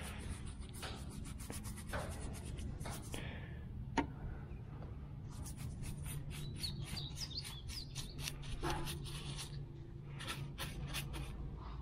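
Paintbrush stroking POR-15 rust coating onto the rusty metal of a car fender, a run of short scrubbing strokes over a low steady hum. A light tick about four seconds in, and a bird chirps a few times near the middle.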